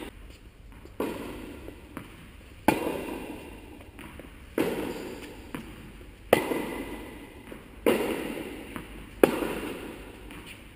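Tennis balls struck by rackets, a sharp hit about every one and a half to two seconds, six in all, each ringing on in the echo of a large indoor tennis hall.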